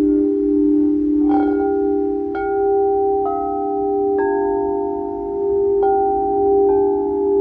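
Crystal singing bowls: a chord of low bowls held ringing steadily while a mallet strikes higher bowls about once a second, six strikes in all, each note ringing on and layering over the last.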